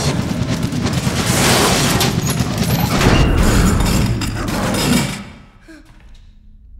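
Movie action soundtrack: a loud, dense volley of pistol shots and crashing that stops suddenly about five seconds in, leaving a quiet stretch with a few faint whines.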